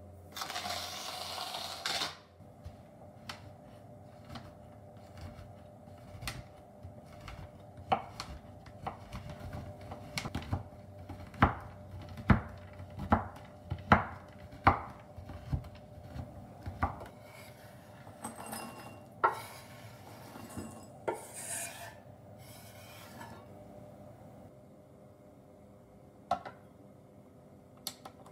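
Pink chocolate being chopped with a kitchen knife on a wooden cutting board: a run of sharp knocks about one a second through the middle, with bursts of scraping before and after and a single light tap near the end.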